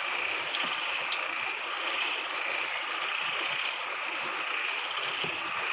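Steady high-pitched chorus of small forest animals, with a few faint clicks.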